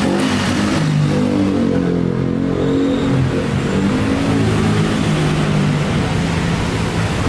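Yamaha Lexi scooter's single-cylinder engine running at idle, its engine speed shifting up and down slightly.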